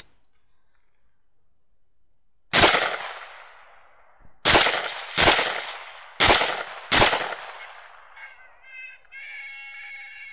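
Five rifle shots in quick succession, the last four under a second apart, each with a short echoing tail. Then hogs squealing for about two seconds near the end.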